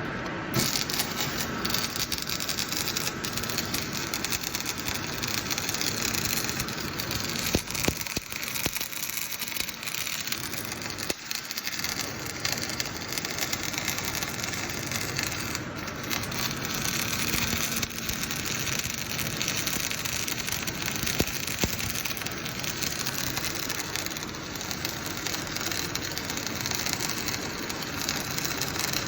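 Semi-automatic gas-shielded (MIG/MAG) arc welding: the arc sets in about half a second in and then gives a dense, steady crackle with a faint low hum beneath it.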